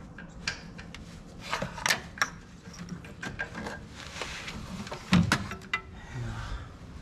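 Scattered clicks, knocks and rubbing of gloved hands working among plastic parts and wiring in a car's engine bay, drawing a freshly unscrewed oxygen sensor and its wire up out of the bay. The loudest knock comes a little past five seconds in.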